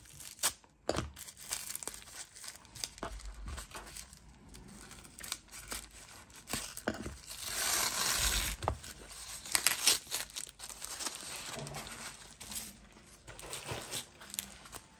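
Black plastic wrapping and tape being torn and crumpled by hand: scattered crackles and rustles, with a longer, louder tearing stretch about halfway through.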